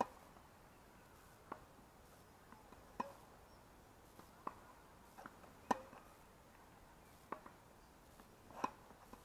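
Tennis ball struck by rackets and bouncing on a hard court during a baseline rally: a sharp, faint pock about every one and a half seconds, with the louder hits near the end.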